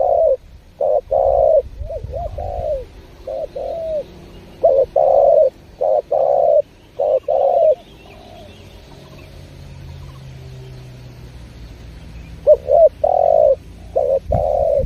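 Spotted dove (tekukur) cooing in repeated phrases of short and longer coos. The calling pauses for about four seconds in the middle, then starts again near the end.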